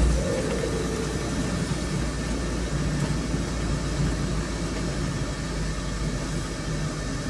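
Steady road noise inside a moving vehicle: engine hum with tyre and wind hiss while cruising along a highway.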